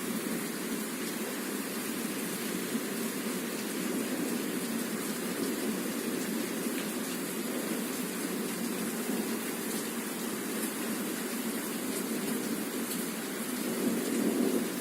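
Heavy rain pouring down steadily, a constant rushing noise with faint ticks of drops, swelling a little near the end.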